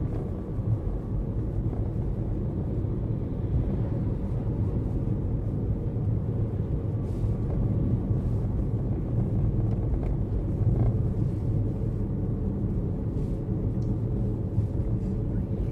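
Steady low rumble of a car driving, its engine and tyre noise heard from inside the cabin, with a few faint clicks.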